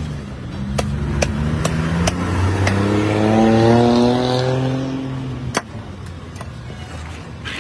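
A motor vehicle drives past, its engine note rising as it accelerates. It is loudest about halfway through and drops away sharply near three-quarters of the way in. A few sharp clicks sound over it.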